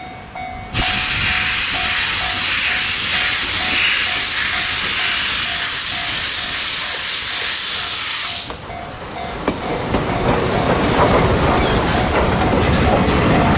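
C61 steam locomotive (4-6-4 Hudson) with its cylinder drain cocks blowing: a loud steam hiss starts suddenly under a second in and cuts off about eight seconds in. After that comes the rumble and clatter of the locomotive and its coaches passing close, building toward the end.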